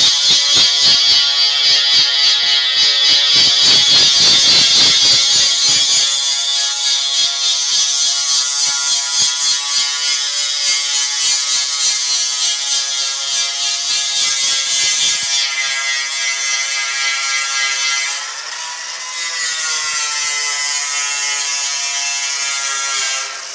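Angle grinder running steadily under load, grinding down the seized steel pin that holds an old sliding-gate wheel so the wheel can be freed. A high whine with a hiss of grinding; toward the end its pitch dips for a moment and climbs back.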